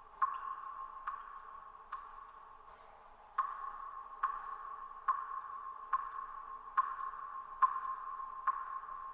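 Water drops falling in a cave: a sharp plink roughly every second, with a slightly longer pause near the start. Each drop leaves an echoing ring that hangs on until the next.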